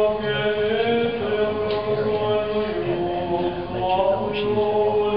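Orthodox liturgical chant: voices sing slow, long-held notes that step between pitches, over a steady low note.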